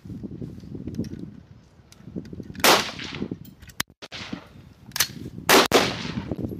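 Rifle shots on a firing line: a loud crack about two and a half seconds in, then two more close together near the end, each trailing off in a long echo. A low rumble of wind on the microphone fills the first couple of seconds.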